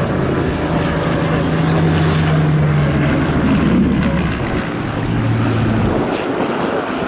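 Supermarine Spitfire's V12 piston engine droning as the fighter flies past. Its pitch drops about four to five seconds in as it passes, then fades.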